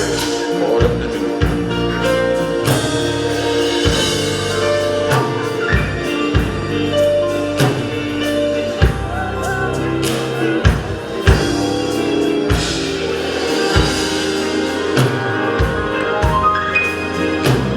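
Gospel music played on organ and drum kit: held organ chords over a steady drum beat.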